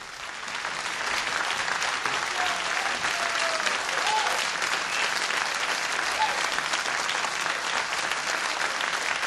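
Crowd applauding, swelling over the first second and then holding steady, with a few short calls rising above the clapping.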